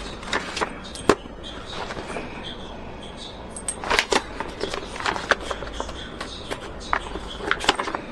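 Irregular sharp clicks and knocks, a few of them louder than the rest, like small hard objects being handled and set down.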